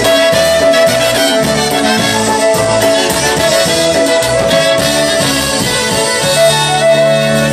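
Live polka band playing an instrumental passage: two trumpets play held notes together over fiddle, accordion and a steady beat in the bass.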